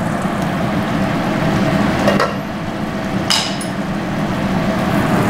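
Tomato meat sauce bubbling at a steady simmer in an uncovered pot, with two short knocks about two and three seconds in.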